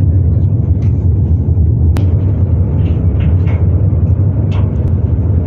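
Steady, loud low rumble of running ship machinery, with a single sharp click about two seconds in and faint distant voices.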